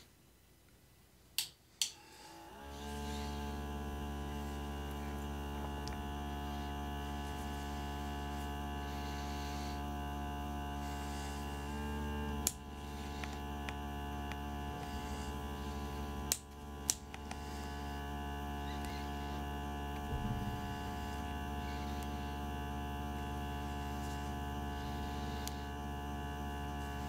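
Nebulizing diffuser's replacement 12 V micro air pump switched on after two clicks, then running with a steady hum. A few more sharp clicks sound later, with the hum dipping briefly after one of them.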